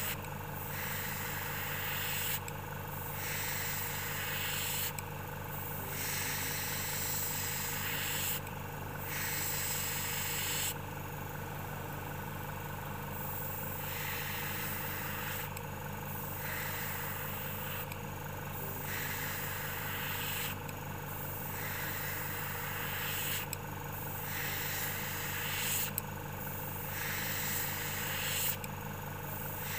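Airbrush compressor running steadily while the airbrush sprays paint in repeated spells of hiss, each one to a few seconds long with short breaks between.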